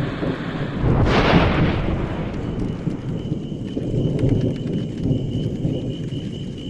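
Thunderclap about a second in, rumbling on and slowly fading under rain, with scattered sharp crackles. A steady, high, pulsing tone joins about two and a half seconds in.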